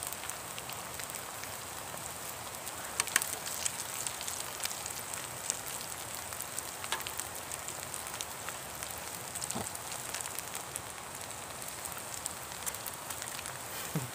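Corn pancakes frying in hot oil in a wide pan: a steady sizzle with scattered crackles and pops.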